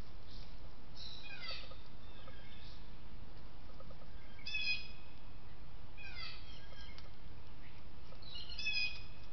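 Wild songbirds singing: four short phrases of high, quickly falling chirping notes about every two seconds, over steady background noise.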